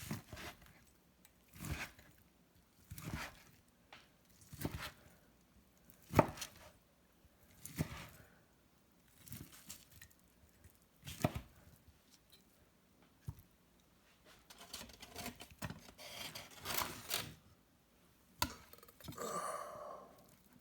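Knife chopping on a cutting board: single sharp strokes about every one and a half seconds, a quicker run of strokes around the middle to later part, and a longer sound near the end.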